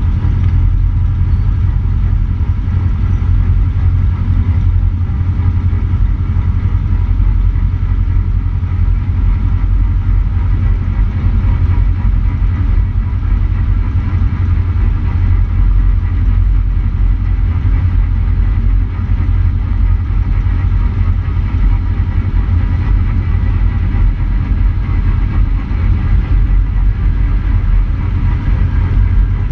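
Cessna 150's four-cylinder Continental O-200 engine and propeller running at low power while taxiing, a steady low drone.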